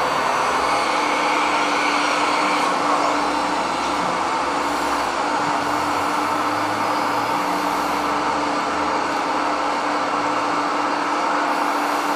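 RC scale New Holland WE210 wheeled excavator running, a steady mechanical hum and whine with a constant low tone throughout.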